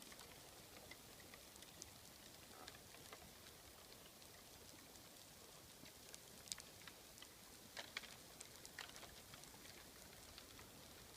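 A herd of reindeer running, making a scattered crackle of many small sharp clicks that sounds like a burning campfire. The clicks get louder and denser about two-thirds of the way through.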